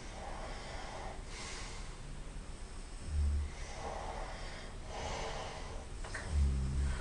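A person snoring in sleep: two loud, low snorts, about three seconds in and near the end, with noisy breaths between them.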